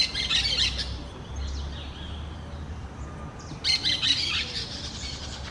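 Orange-chinned parakeet calling in two bouts of rapid, shrill chatter, one at the start and one about three and a half seconds in.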